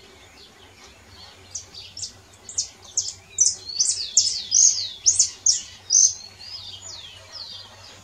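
Saffron finch (Brazilian canário-da-terra) singing: a run of sharp, high notes that each sweep downward, about three a second, loudest in the middle and thinning out near the end, after about a second and a half of fainter chirping.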